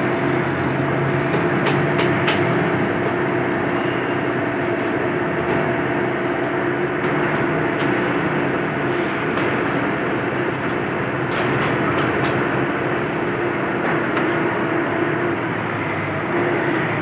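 Heavy diesel engine of a demolition excavator running steadily, with a few faint knocks about two seconds in and again near the middle.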